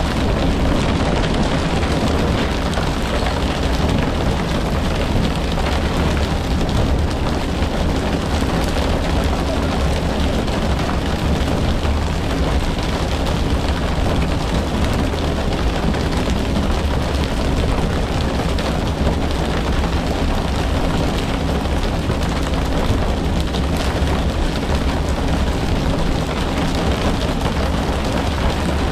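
Steady, loud rumble and rushing noise aboard a pole-and-line tuna fishing boat: the boat's engine running under a wash of water noise.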